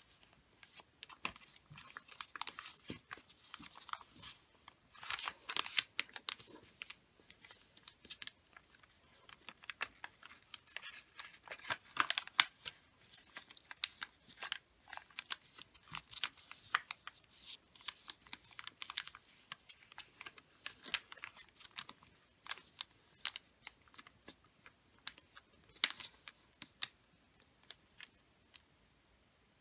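A sheet of wrapping paper being folded by hand: irregular rustling and crinkling with short, sharp crackles as the creases are pressed and the flaps tucked in. The loudest crackles come about 12 s and 26 s in.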